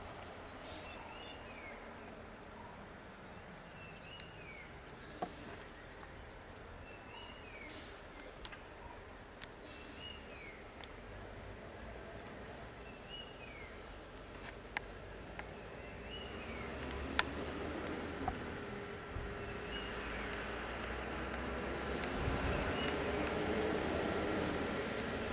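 A bird repeats a short falling call about once a second over faint, regular high ticking. From about two-thirds of the way in, a bus engine rumbles up and grows steadily louder as it approaches.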